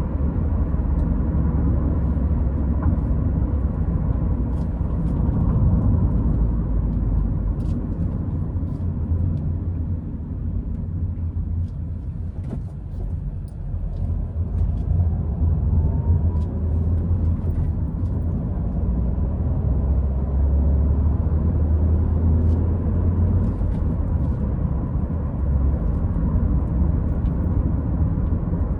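Car driving, with a steady low engine and road rumble that eases briefly about halfway through, and scattered faint small ticks and rattles.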